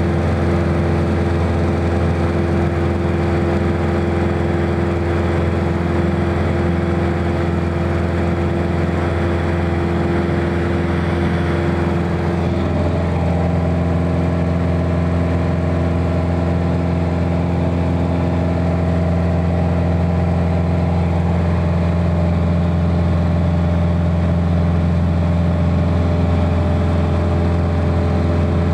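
Piper Warrior's four-cylinder Lycoming piston engine and propeller running steadily in flight, heard as a loud, even drone from inside the cabin. About twelve seconds in, the pitch pattern of the drone shifts slightly.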